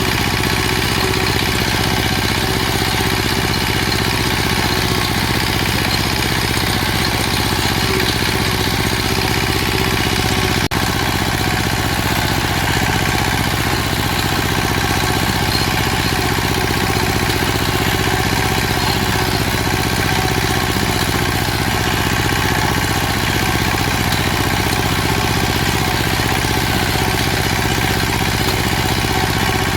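Machinery running with a loud, steady drone that holds unchanged throughout, with one sharp click about ten seconds in.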